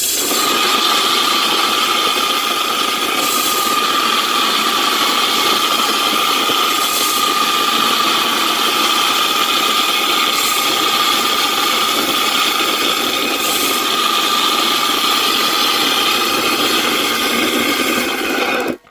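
A motor-driven machine running steadily with a constant whine, loud and unchanging, then cut off abruptly near the end.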